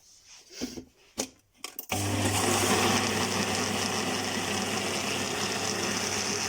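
A few light knocks and clicks, then an electric blender starts about two seconds in and runs steadily, grinding lemon peels with sugar and water. It cuts off suddenly at the end.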